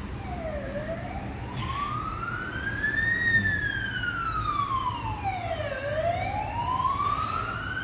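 A wailing siren, its pitch sweeping slowly down and up twice, about five seconds per rise and fall.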